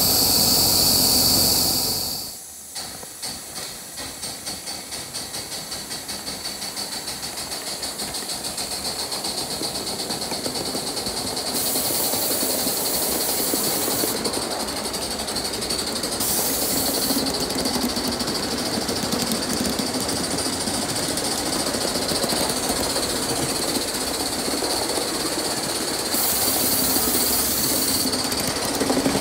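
Gauge 1 live-steam model of DR class 03 locomotive: a steady steam hiss for about two seconds, which cuts off, then the exhaust chuffs as it moves off, slow at first and quickening over several seconds into a fast, steady beat as it runs. Short bursts of hissing steam come in three times over the run.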